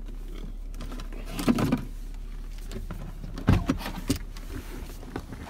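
Tesla Model S driver's door being opened from inside: brief handling noises, then a sharp thump of the door coming open about three and a half seconds in and a smaller click just after.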